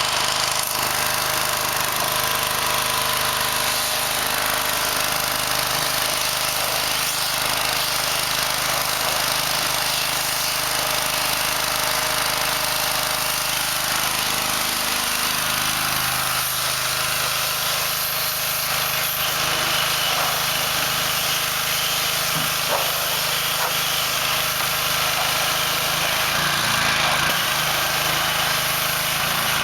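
Small engine running steadily under a loud, even hiss, its low note shifting slightly about halfway through.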